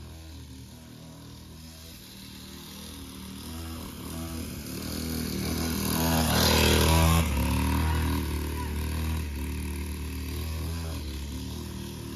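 Small kids' dirt bike engine running as it rides around. It grows louder as the bike comes close, peaking about six to seven seconds in, then fades as it moves away.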